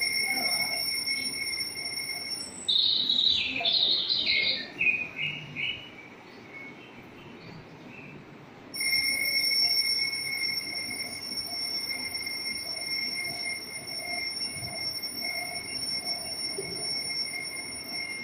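Steady high-pitched insect shrilling, like crickets or cicadas, that cuts off about two and a half seconds in and cuts back in sharply about nine seconds in. In the gap comes a few seconds of quick, irregular bird chirps.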